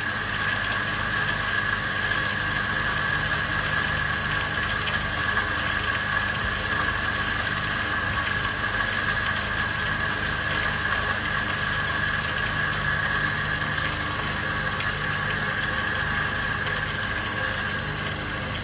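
Electric drive motors turning hand coffee grinders at 144 RPM as they grind medium-roast beans: a steady mechanical whine with a low hum under it.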